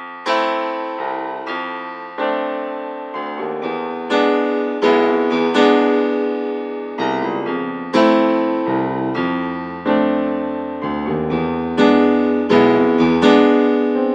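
Background music: solo piano playing a melody of struck notes that ring and fade, a new note or chord about every half second to second.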